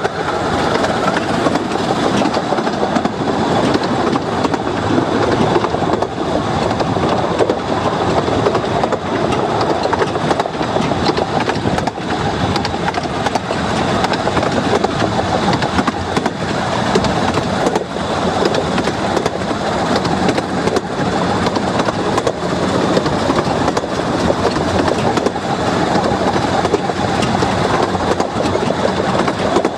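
A 15-inch gauge railway carriage running along the track: its wheels on the rails make a steady rumble and clatter.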